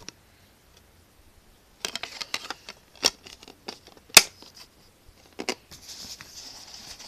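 Plastic DVD case and disc being handled: a run of clicks and taps, the sharpest about four seconds in, followed by a soft rustling near the end.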